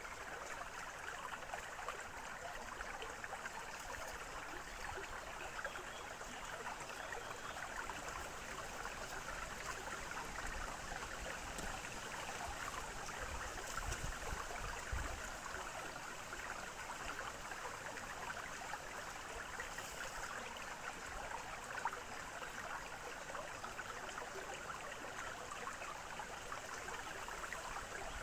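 Small forest stream babbling and trickling steadily over stones, with a few low rumbles about halfway through.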